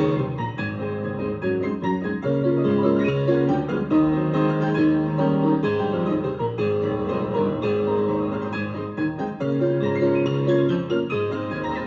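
Piano or keyboard playing a flowing passage of sustained chords and melody notes.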